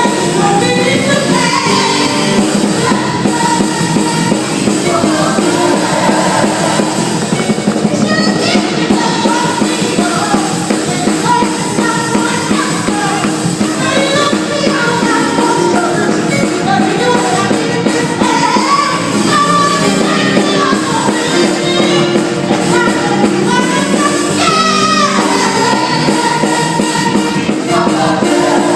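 A gospel group performing a song: a lead singer with backing band and drums, loud and continuous, with the sound of a large hall.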